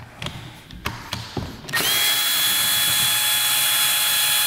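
Cordless electric screwdriver with a No. 1 Phillips bit backing a screw out of a plastic e-bike battery case. A few small clicks and taps come first; then, nearly two seconds in, the motor starts and runs with a steady, even whine.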